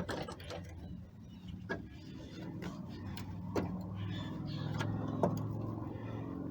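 A steady low engine hum that grows a little louder past the middle, with a few sharp clicks.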